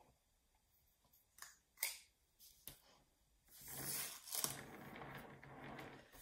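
Faint handling sounds: a few small clicks, then a longer rustle and scrape as a hare sculpture on its base is turned on a paper-covered table and a super glue tube is picked up.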